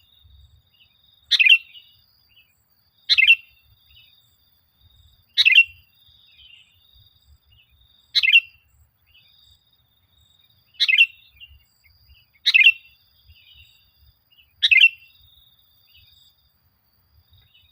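Sooty-headed bulbul (kutilang) calling: seven short, loud call notes a couple of seconds apart, with faint softer chatter between them.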